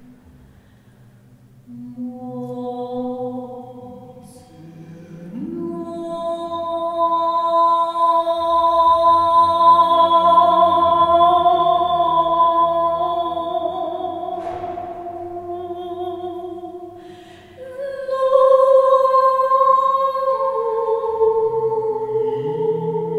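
Unaccompanied two-voice singing: a woman's voice holds long, slowly gliding high notes over a man's low sustained voice. The phrases swell and fade, with a fresh, louder phrase starting about 18 seconds in, sung in a marble stairwell.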